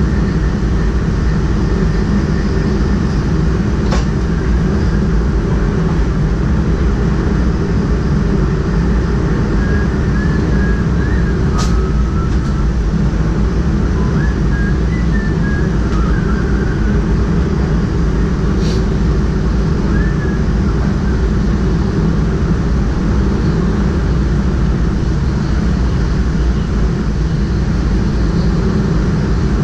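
Steady running noise of a DDAR double-deck train heard from the driver's cab: a continuous low rumble, with three sharp clicks spread through it and faint wavering squeals from about a third of the way in to about two thirds.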